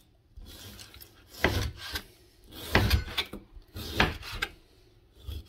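Chef's knife slicing through raw beef and scraping on the cutting board, in three main strokes about a second or so apart, with fainter scrapes between.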